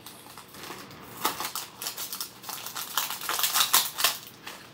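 Plastic blind-bag wrapper of a Disney Doorables Mini Peek pack being torn open and crinkled by hand: a rapid, irregular run of crackles and rustles that gets busier after about a second.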